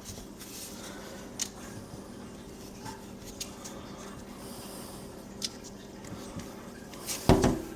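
Quiet hand-work noises of plumber's putty being pressed onto a kitchen sink strainer basket: a few faint clicks and soft rubbing over a steady low hum. A short voiced sound, like a grunt or murmur, comes near the end.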